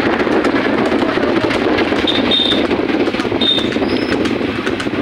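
Steady rumble and rattle of vehicles running along a paved road, heard from a moving vehicle, with a few short high-pitched tones about two seconds in and again a second later.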